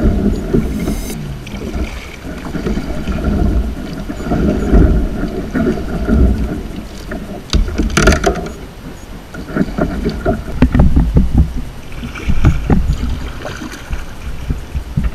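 Water slapping and sloshing around a kayak, with irregular knocks against the hull and wind buffeting the microphone. One sharper knock or splash comes about halfway through.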